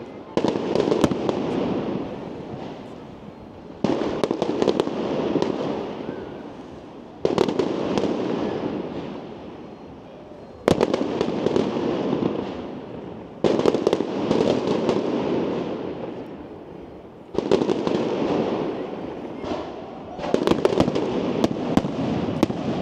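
Aerial firework shells bursting, one sudden boom every three to four seconds, each fading away over a few seconds. A rapid crackle of many small reports comes near the end.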